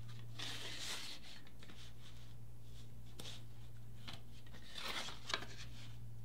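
Hands creasing and folding a die-cut mat board box blank covered with fused material, with soft rubbing and scraping of the board against the table near the start and again around five seconds in. A sharp click comes just after five seconds, over a steady low hum.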